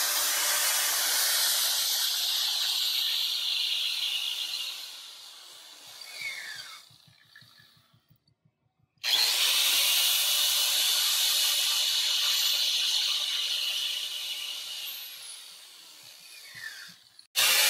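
Electric angle grinder grinding down an engine camshaft's gear to clear a connecting rod that is hitting it. It runs steadily twice, each time fading out with a falling whine as it spins down, the second run starting abruptly about nine seconds in.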